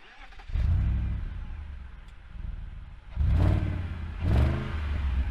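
Mercedes-Benz W124 230E's four-cylinder petrol engine running and revved three times, each blip rising and falling back toward idle.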